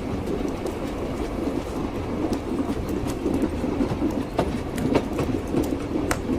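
Train wheels clattering on the rails as a railway carriage runs along: a steady low rumble with sharp clacks every so often.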